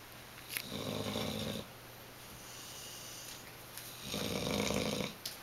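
A young Bullmastiff–Boxer mix dog snoring in its sleep: two snores, each about a second long and about three seconds apart, with a softer breath between them.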